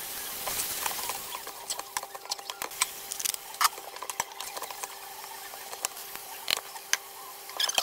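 Spatula scraping and knocking against a non-stick frying pan as minced beef with chopped carrots and onion is stirred. It comes as irregular clicks and short scrapes.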